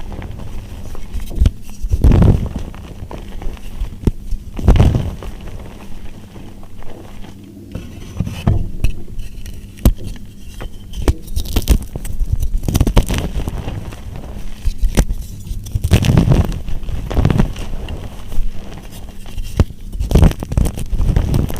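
Dry soap being crushed: a steady run of irregular crackles and crunches, with louder crunches about 2 and 5 seconds in and again around 16 to 17 seconds.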